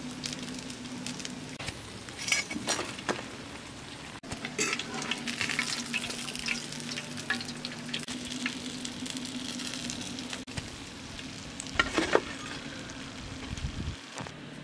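Whole fish deep-frying in a pan of hot oil, sizzling and crackling steadily, with louder spells of spitting about two and a half seconds in, from about four and a half to seven seconds, and around twelve seconds as fried fish are lifted out with a slotted spoon.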